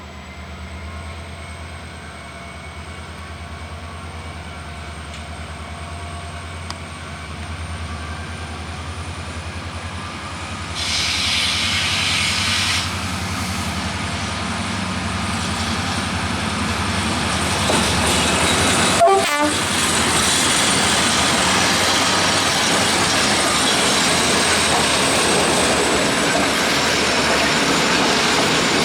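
GM-class diesel-electric locomotive hauling a passenger train, approaching and running past. A steady low engine hum grows louder and gives way to the rolling noise of wheels on the rails. About eleven seconds in there is a brief two-second hissing blast, and a sharp click comes near the twentieth second.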